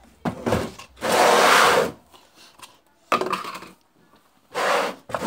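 Rubbing and scraping handling noises in several bursts, the loudest lasting about a second, starting about a second in.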